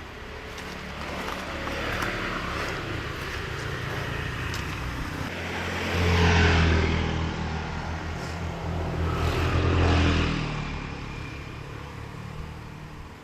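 Motor vehicles passing on a road, their engines swelling and fading. Two louder pass-bys come about six and ten seconds in.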